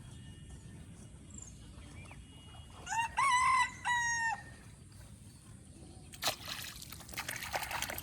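A rooster crows once, a multi-part cock-a-doodle-doo about three seconds in. From about six seconds in there is irregular splashing and sloshing of water.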